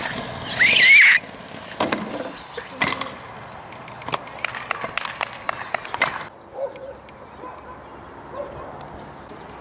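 Stunt scooter wheels rolling on asphalt, with sharp clacks of the deck and wheels hitting the road. Near the start a brief high-pitched cry, the loudest sound; after about six seconds it turns quieter, with only a few faint clicks.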